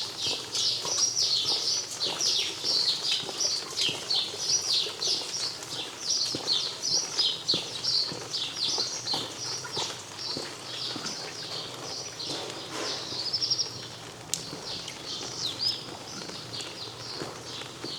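Many small birds chirping at once: a dense, unbroken chatter of short high chirps, many dropping in pitch, easing off a little in the last few seconds.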